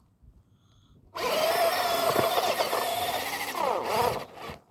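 Electric RC truck's motor whining at full throttle with its wheels spinning in loose dirt, starting about a second in; the pitch dips and climbs again near the end as the truck struggles for grip where it is stuck.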